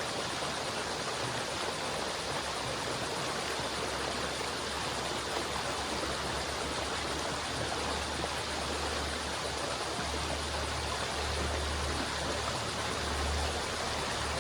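River water flowing with a steady, even rushing. In the second half a low rumble swells in and out beneath it.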